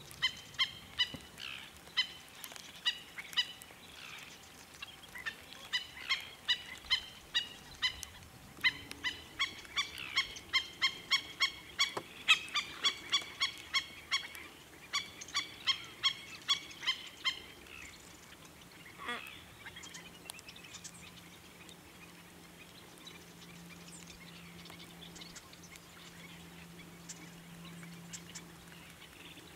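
Black-necked stilt calling: a rapid series of short, sharp notes, several a second, through the first half, then dropping away to a few faint calls.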